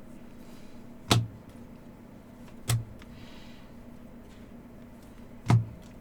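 Trading cards being handled on a table: three sharp taps as cards or small stacks are set down, a soft slide of cards in between, and a steady low electrical hum throughout.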